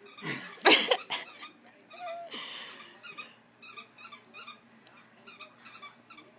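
A pug panting in quick, even breaths after running in circles, with a loud vocal burst just under a second in and a short squeak about two seconds in.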